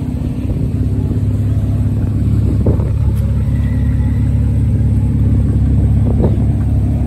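A car engine idling, a steady low rumble, with two faint short knocks about three and six seconds in.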